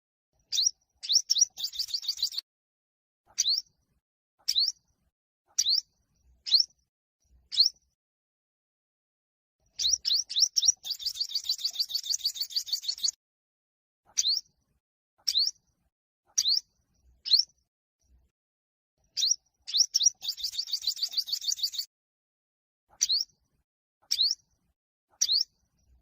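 Yellow-bellied sunbird singing in competition style: sharp upward-sweeping chirps about once a second, twice broken by a fast rattling trill lasting two to three seconds.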